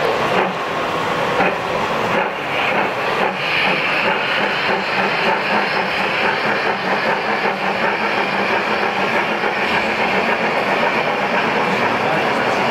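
Gauge 1 model steam locomotive running past with a goods train of tank wagons: a steady hiss of steam over the clatter of the wagons' wheels on the track.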